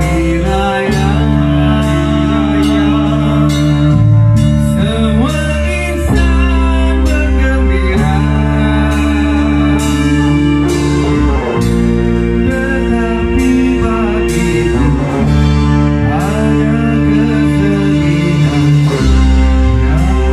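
A live band playing a song: electric guitar, bass guitar and drum kit, with a singer on microphone.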